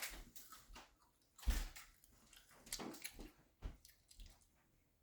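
Faint, irregular wet mouth clicks and lip smacks from someone tasting hot sauce.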